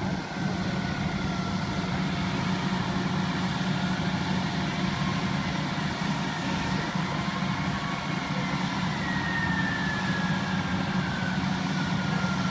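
Fire engine's diesel engine running steadily at the scene, with a faint siren slowly rising and falling in the distance.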